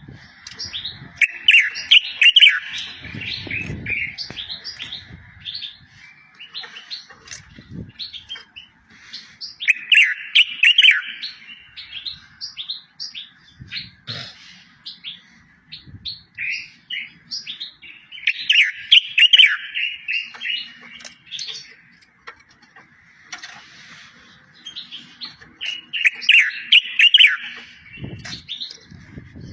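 A songbird singing. A loud, fast warbled phrase comes about every eight seconds, four times, with scattered single chirps between, and a few faint low thumps underneath.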